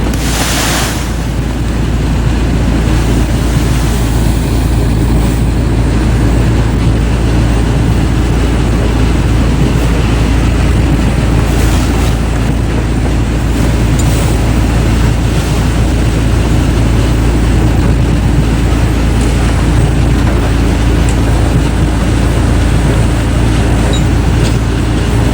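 Heavy wood-processing machinery running loud and steady, with a deep, dense machine noise. A short burst of noise comes about half a second in.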